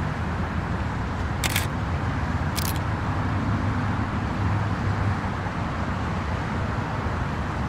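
Recorded song intro before any beat or vocals: a steady low rumble with hiss, with two short hissing bursts about a second apart, at about one and a half and two and a half seconds in.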